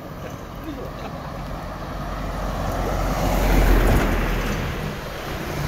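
Road traffic: a vehicle passes close by, its engine and tyre noise swelling to a peak about four seconds in and then fading, over a low steady engine hum.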